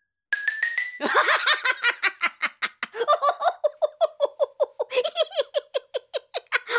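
A person laughing steadily in quick pulses, about six a second, with a short rapid rising chirping in the first second before the laughter starts.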